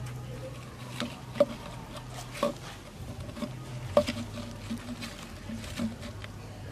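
Dry twigs and branches crackling and snapping in irregular sharp clicks, the loudest about a second and a half in and at four seconds, over a low steady hum.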